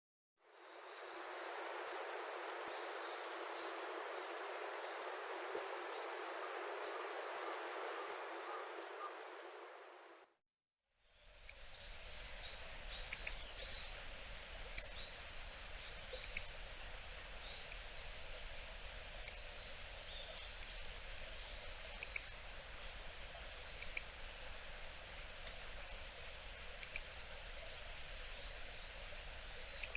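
Hawfinch giving short, sharp, high call notes, some singly and some in quick clusters. After a break of about a second they come at a steady pace, about one every second and a half.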